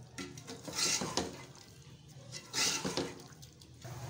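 Metal spoon stirring and scraping a tomato masala in an aluminium pot, two strokes: one about a second in, another near three seconds.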